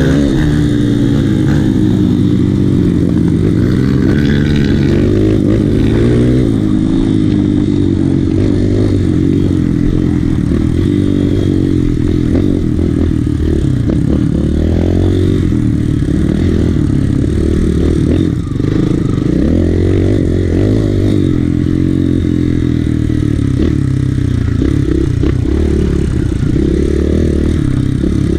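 Kawasaki KLX150 dirt bike's single-cylinder four-stroke engine, bored out to 170cc, heard on board while riding: the engine note rises and falls as the throttle opens and closes through the track's straights and turns, dropping off briefly about two-thirds of the way through, with the bike's chassis clattering over the rough dirt.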